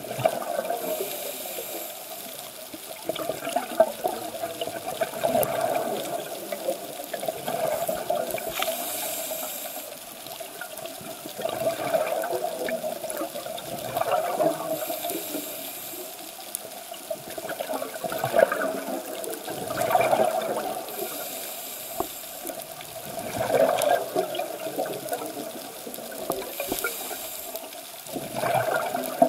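Scuba diver breathing on a regulator: a high hiss on each inhale, about every six seconds, alternating with bubbling gurgles from each exhale.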